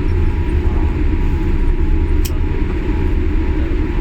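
Steady low rumble of a jet airliner heard from inside the passenger cabin, with a faint steady whine and a single faint click about two seconds in.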